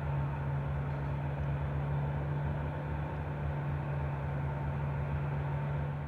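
Ski-slope snow-working machinery running at night: a steady low engine drone with a faint higher hum, holding level without change.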